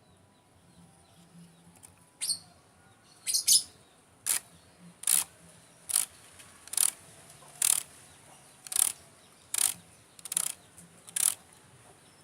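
Male kemade (bangsit) bird calling in breeding condition: about a dozen short, sharp, high notes, evenly spaced a little under a second apart, starting about two seconds in.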